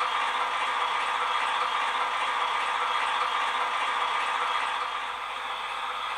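Sound decoder in a Roco model of the ČSD class 751 'Bardotka' diesel locomotive, playing the diesel engine's idling sound through its small loudspeaker: a steady rattling drone that drops slightly in level about five seconds in.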